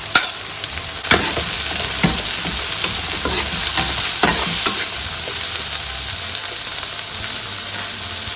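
Chopped onion and bell pepper sizzling in olive oil in a pan while being stirred, a steady hiss with scattered clicks and scrapes of the spoon against the pan.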